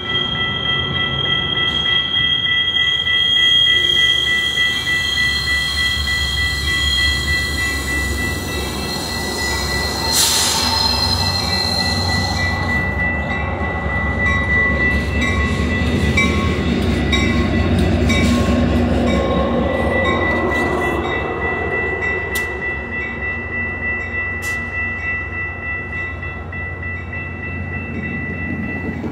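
Metra MP36 diesel locomotive running light past the listener: a steady engine rumble with a high, steady wheel squeal from the rails, and a short hiss about ten seconds in. The sound fades over the last several seconds as the locomotive moves away.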